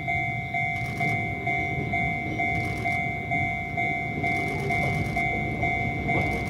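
Japanese railway level-crossing warning bell ringing: an electronic two-tone ding repeating a little over twice a second. A low steady rumble runs underneath.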